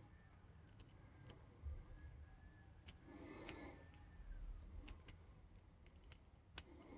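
Faint, scattered ticks and clicks of a lock pick working the pins of a 5-pin CISA brass padlock held under tension, about half a dozen spread over several seconds, with a soft rustle around the middle.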